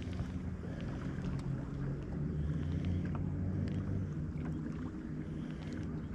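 Boat motor running with a steady low hum, a few light clicks over it.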